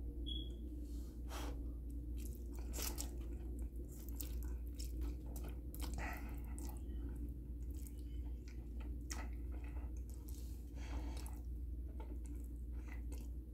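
A man chewing mouthfuls of soft spaghetti, with irregular wet mouth and biting sounds over a steady low hum.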